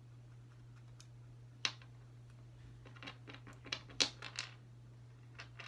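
Irregular small clicks and crunches from a pet rabbit gnawing at a hard dried treat and struggling to bite into it. The clicks start about one and a half seconds in and cluster near the middle, the loudest about four seconds in.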